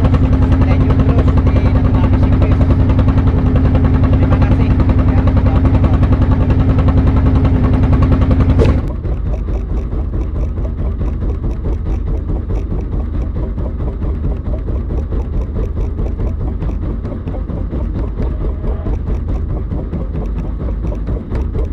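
A boat's engine running steadily with a loud low hum. About nine seconds in the sound changes abruptly to a quieter, rattling running sound with fine regular ticks.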